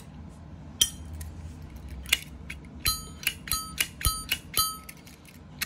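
Zippo lighter's brass case being handled, giving a run of sharp metallic clicks and clinks, several with a short ring, as the stuck insert is worked at in the case.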